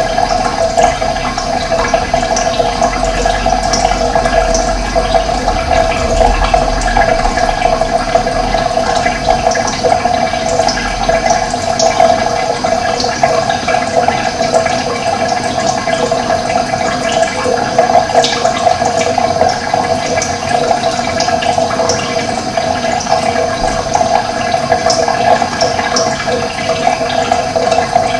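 Steady rush of running water, with short high bird chirps here and there.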